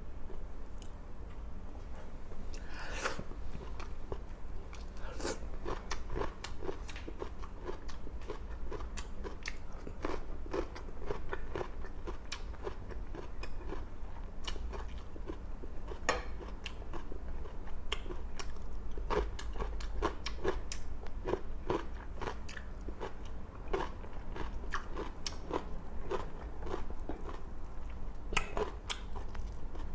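A person chewing and biting food close to the microphone: a steady run of quick, irregular mouth clicks with a few sharper, crunchy bites scattered through. The meal is grilled milkfish with rice and a fresh cucumber, lettuce and tomato salad.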